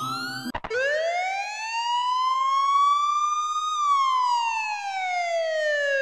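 Police car siren wailing. About half a second in, the previous siren and its steady low backing cut off abruptly. A new slow wail follows, rising in pitch for about three seconds, then falling for about three seconds.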